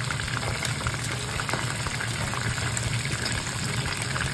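Chicken gizzards coated in potato starch deep-frying in a pan of oil at about 160 °C, the first fry of a twice-fried karaage: a steady sizzle with dense crackling throughout. A low steady hum runs underneath.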